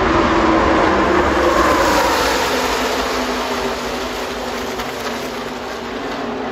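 Pack of NASCAR Truck Series race trucks passing at full racing speed, their V8 engines running together in one loud mass. The engine note drops in pitch as they go by, and the sound fades steadily as the field moves away down the track.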